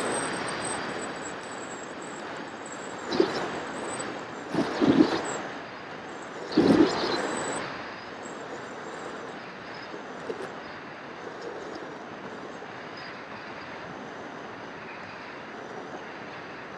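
Wind rushing over the onboard camera of an FPV model aircraft in flight, with the thin high whine of its electric motor and propeller. Louder gusts buffet the microphone about three, five and seven seconds in.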